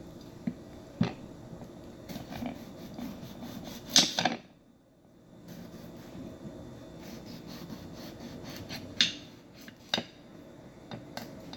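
A chop knife cutting raw potatoes on a cutting board: scattered knocks of the blade on the board with scraping between them, the loudest about four seconds in.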